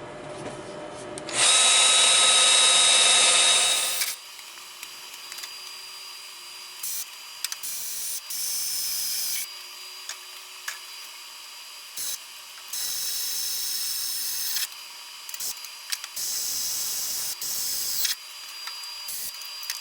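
Power drill running in four separate runs of about two to three seconds each, drilling the engine-mounting holes in the mower deck.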